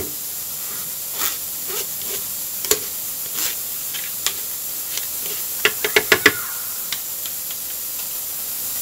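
Kitchen utensils being handled and set down: a few light separate clicks and knocks, then a quick cluster of clicks about six seconds in, over a steady hiss.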